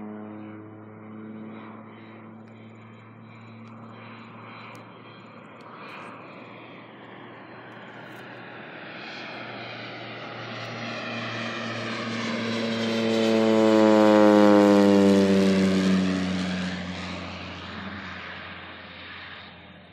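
Single-engine propeller crop duster flying low past: the engine drone builds to its loudest about three-quarters of the way through, drops in pitch as the plane goes by, then fades away.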